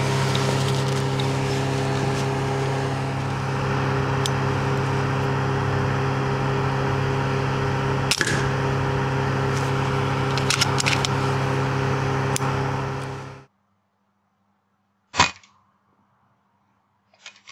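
Steady hum of a ventilation fan, several constant tones, with a few light clicks of rifle and tripod handling; it cuts off abruptly about thirteen seconds in. After a near-silent gap, a single sharp shot from a moderated FX Dynamic Compact PCP air rifle, followed near the end by a few faint clicks.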